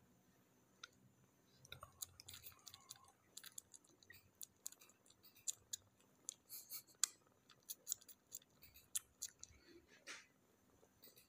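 Orange kitten suckling on its littermate's belly: quick, irregular small clicks and smacks of its mouth, busiest through the middle.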